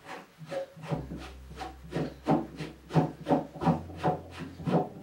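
Threaded levelling foot of a Dignity Lifts DL1 toilet lift being turned by hand, a repeated rubbing scrape about three times a second as the foot is screwed out to raise the lift.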